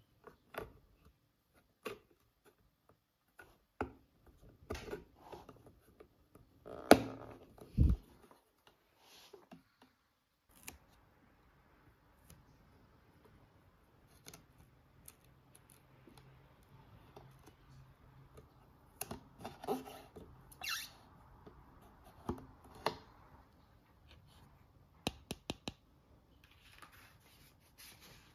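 Small toy parts and packaging being handled at close range: sporadic clicks, taps and short rustles, with two louder knocks about seven and eight seconds in and quick runs of clicks near the end.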